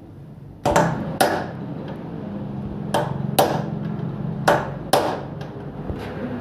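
Hammer blows, six sharp strikes in three pairs about half a second apart, each ringing briefly, while a motorcycle steering-head cone set is being fitted. A steady low hum runs beneath the strikes.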